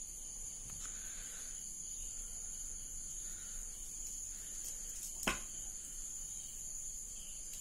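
Steady high-pitched chirring of crickets, with faint rustling of plastic beads and thread being handled and one sharp click a little over five seconds in.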